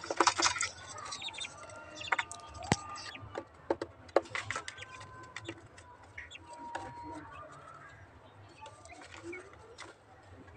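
Quail and young chickens dust-bathing in a tub of damp sand: scattered light scratching and pecking clicks, with a few soft chirps and clucks.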